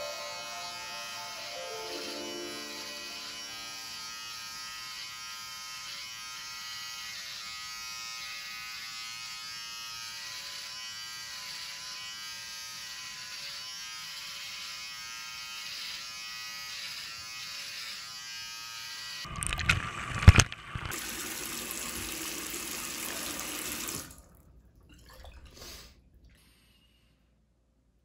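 Electric beard trimmer buzzing steadily as it is run over the neck and jaw. About 19 seconds in, the buzz gives way to loud splashing water, which cuts off sharply about five seconds later.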